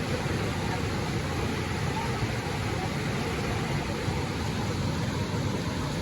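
Steady rushing noise of whitewater rapids, an even roar with no breaks.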